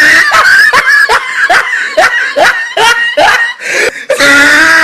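A person laughing in a rhythmic run of short bursts, about two or three a second, with a drawn-out voiced sound at the start and again near the end.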